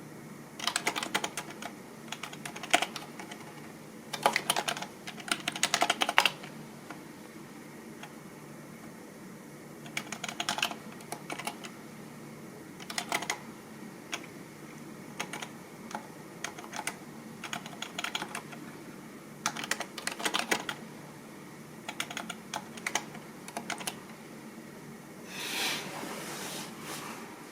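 Typing on a computer keyboard: short bursts of rapid key clicks, separated by pauses of a second or more.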